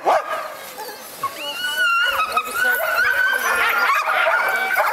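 A pack of sled dogs barking and yipping, then from about a second in a chorus of long, high whines and howls held over one another. The dogs are worked up by the food coming out at feeding time.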